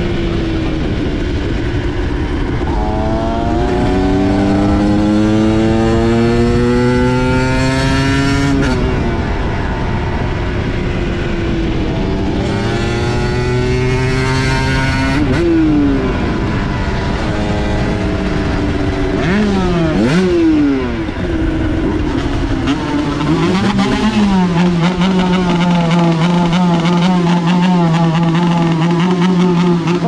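Aprilia MX125's 125 cc two-stroke single-cylinder engine under hard acceleration: the pitch climbs steadily and drops suddenly at each upshift, twice, then rises and falls quickly a few times before holding steady revs for the last six seconds. Wind rushes over the microphone throughout.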